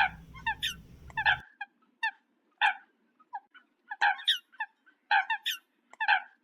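Eurasian coot giving a series of short, sharp calls, spaced irregularly and sometimes in quick pairs.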